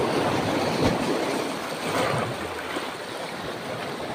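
Rough sea waves washing in at the shoreline, a steady rush of surf that swells about two seconds in and eases after.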